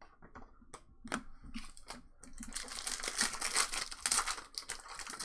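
Trading cards and foil pack wrappers being handled: scattered clicks, then about two and a half seconds of dense crinkling and rustling.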